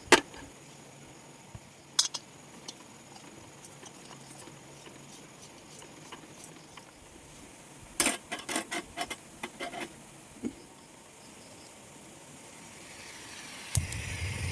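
Scattered sharp clicks and knocks, with a quick clatter of them about eight to ten seconds in, like small objects being handled. Near the end a steady low rumble with a hiss starts up and grows louder.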